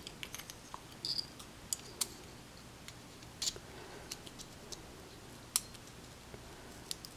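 Scattered small metallic clicks and light scraping, about half a dozen sharp clicks, from handling a brass lock cylinder as its keyed plug is worked out of the housing.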